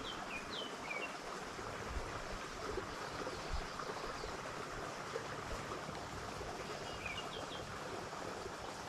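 Creek water pouring over a small spillway, a steady rush, with a few short bird chirps about a second in and again near the end.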